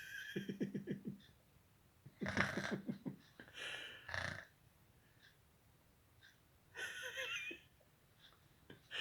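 Snoring: several rough, rattling snores about two seconds apart, each with a wheezy breath.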